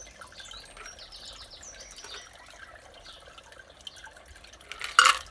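Shaken creamy cocktail strained from a copper cocktail shaker over ice into a glass, trickling and dripping faintly. A single sharp knock comes about five seconds in.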